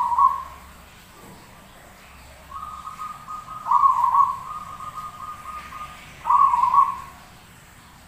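Zebra dove (perkutut) cooing: three short rolling coos near the start, about four seconds in and about six and a half seconds in, with a softer, steady held note running between about two and a half and six seconds.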